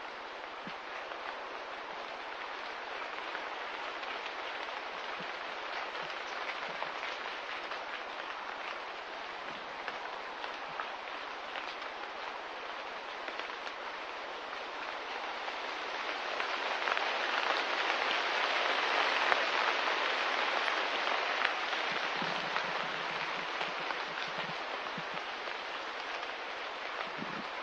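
Steady rain falling, a continuous hiss with small drop ticks, growing louder for a few seconds just past the middle.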